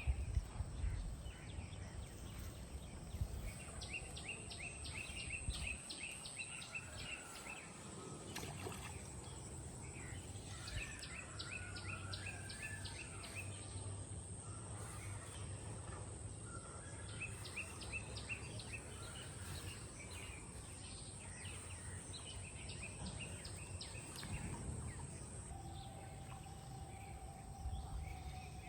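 A bird singing a rapid string of repeated notes, the phrase coming back four times, over a low steady outdoor rumble.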